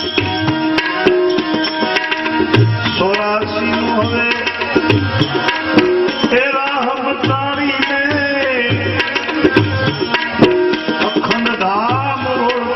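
Instrumental interlude of a Gujarati bhajan: tabla keeping a steady rhythm under a melodic lead instrument playing sliding, gliding notes.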